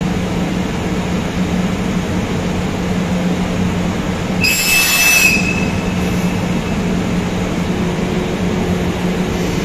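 EF64 electric locomotive standing at a platform with a steady low hum from its running equipment. A brief sharp hiss cuts in about four and a half seconds in.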